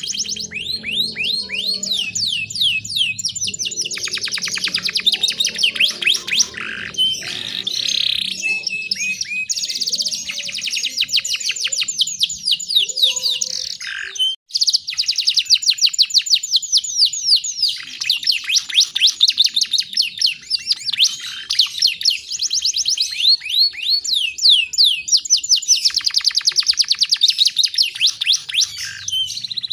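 Canary singing long, fast trills of rapidly repeated high notes, with short breaks between phrases.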